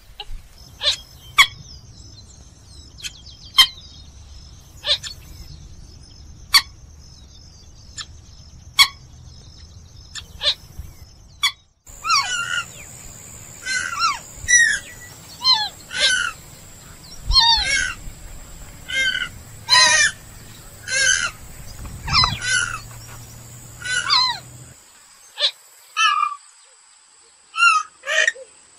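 Calls of a purple gallinule-type rail (genus Porphyrio). For about twelve seconds there are sharp single call notes every one to two seconds. Then, after a break, comes a faster run of loud, downward-sliding calls, and a few more calls near the end, all over a thin steady high tone.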